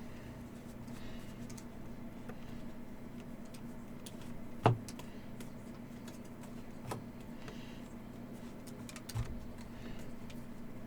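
Trading card packs and cards being handled on a table: a few scattered taps and clicks, the loudest about halfway through, over a steady low hum.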